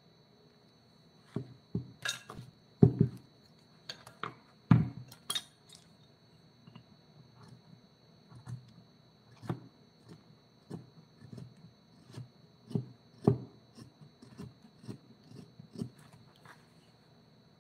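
Irregular knocks and clicks of hand tools on wood, the loudest two a few seconds in, over a faint steady high whine.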